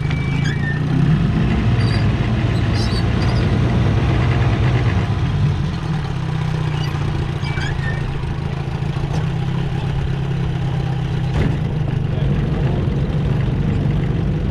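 1973 Johnson 20 hp two-stroke outboard motor running steadily in reverse gear.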